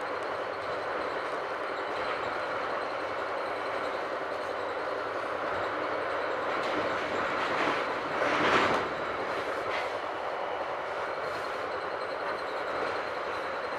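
Metra Rock Island Line commuter train running, heard from inside the passenger car: a steady ride noise that swells into a louder rush for about a second around eight seconds in.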